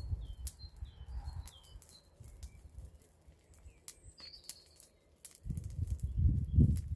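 Bonfire crackling with scattered sharp pops, under a low rumble that swells near the end. Small birds chirp in the first few seconds.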